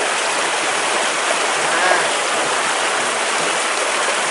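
Steady rush of running water from a small stream.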